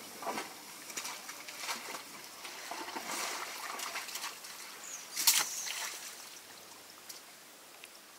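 African elephant feeding on grass: irregular bursts of rustling and tearing as the trunk and forefoot work the turf. The loudest burst comes about five seconds in.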